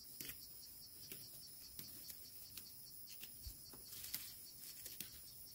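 Quiet field ambience: a faint steady high-pitched insect drone, with soft scattered rustles and clicks of barley stalks being picked by hand.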